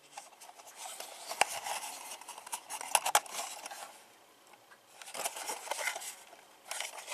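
Plastic HO-scale model boxcar being handled and turned over in the hand: light clicks, rattles and scrapes in three spells, with two sharper clicks about one and a half and three seconds in.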